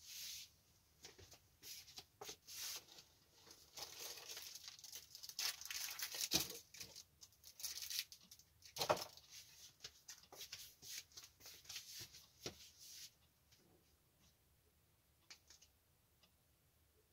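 Rustling, crinkling and scraping of things being handled and rummaged through, with scattered clicks, for about thirteen seconds; then it goes mostly quiet, with only a few faint clicks.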